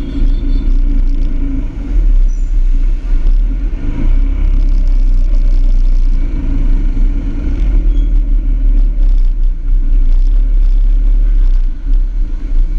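Motor scooters riding in city traffic with buses alongside: engines running steadily under a heavy, fluctuating wind rumble on the camera's microphone.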